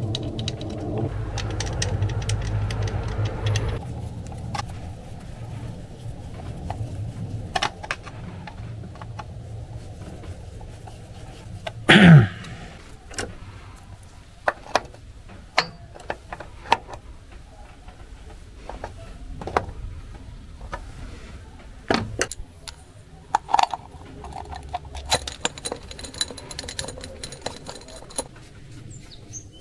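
Metal engine parts handled and fitted by hand: scattered clinks and knocks of steel intake pieces against each other and the engine, with a low hum in the first few seconds. About twelve seconds in comes a brief, loud squeal that slides steeply down in pitch.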